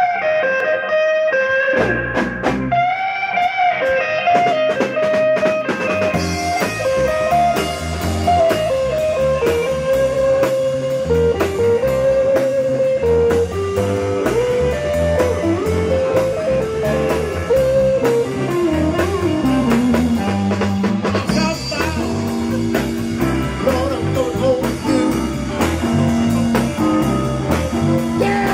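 A rock band playing a blues-rock number: electric guitars, bass and drum kit, with a lead line bending in pitch over the chords. The opening is sparse with short breaks, and the drums and cymbals fill in about six seconds in.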